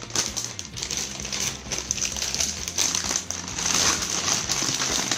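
Packaging crinkling and rustling in uneven bursts as a reciprocating saw is unwrapped from its box.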